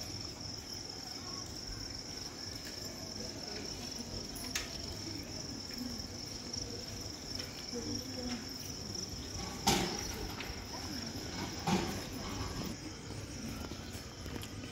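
Crickets chirring in a steady high-pitched drone, with faint low voices underneath. A couple of sharp knocks stand out, the loudest about ten seconds in and another about two seconds later.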